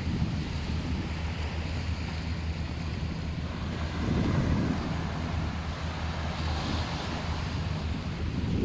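Waves washing onto a sandy beach, with wind buffeting the microphone and a steady low hum underneath. The wash swells up about halfway through.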